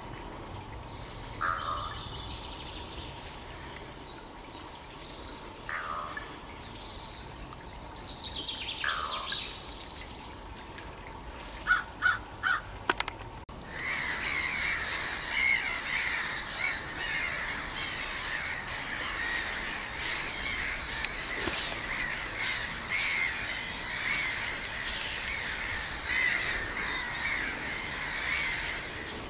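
Birds calling: scattered chirps and calls at first, then a dense, continuous chattering from about halfway through. Just before the chattering begins comes a quick run of four sharp clicks.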